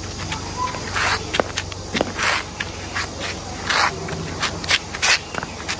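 Footsteps scuffing on concrete: a series of irregular shoe scrapes and steps.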